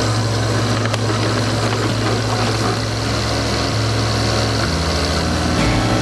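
Mini excavator's diesel engine running steadily, its pitch shifting a few times in the last two seconds as the arm works the log grab.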